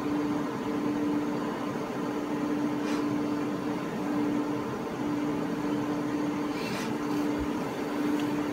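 Steady electrical and fan hum from equipment in the room: one even low tone over a soft hiss, with a couple of faint clicks.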